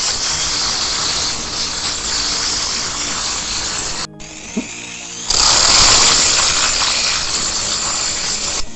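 Angle grinder with an abrasive disc grinding the steel of an axe head, a loud steady hiss that drops away for about a second partway through and then cuts off sharply near the end.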